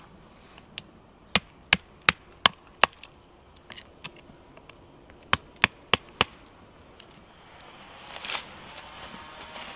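Wooden mallet striking the top of a wooden stake, driving it into the ground: a run of five sharp knocks about three a second, a few lighter taps, then four more knocks. A short rustle near the end.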